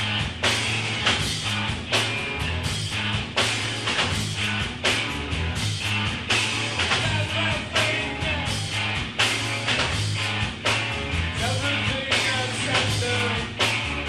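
Rock band playing live: a steady drum beat under bass and electric guitar, with singing.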